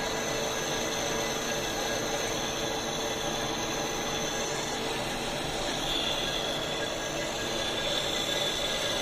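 Lathe turning a cast bronze bearing bushing: steady cutting noise with a thin whine, which changes to a different whine about six seconds in.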